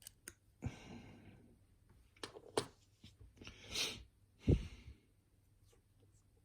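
Small metal lock parts being handled while the lock is taken apart: scattered sharp clicks and taps, the loudest about four and a half seconds in. Soft breathy noises come between them.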